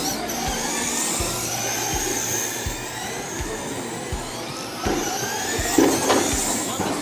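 Remote-control race cars whining around the track, their motor pitch rising and falling as several cars speed up and slow down. There are short knocks here and there, with louder swells about five and six seconds in as cars pass close.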